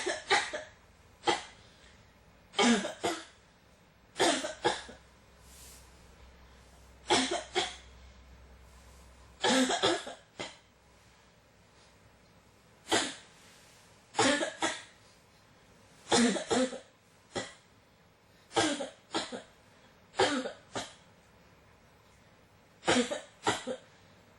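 A person coughing again and again in short fits of two to four coughs, every second or few seconds: a cough that won't stop.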